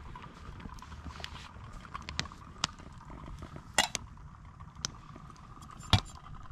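Metal spoon clinking and scraping against the inside of an open tin can, several separate sharp clinks over a faint steady background.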